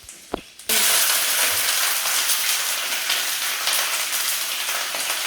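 Wet green beans dropped into hot olive oil, bursting into a loud, steady frying sizzle with spattering about a second in. The water still on the washed beans makes the oil spit.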